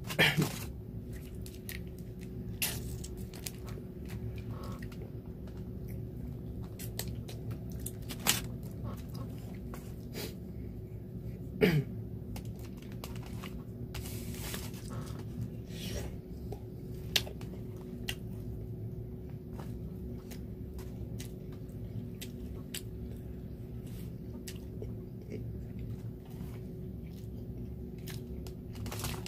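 A person chewing and biting into beef balls, with scattered soft clicks over a steady low hum.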